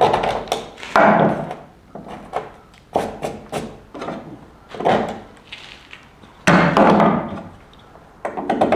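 Irregular knocks, thuds and clatters of things being handled and set down, with a longer scraping rub past the middle.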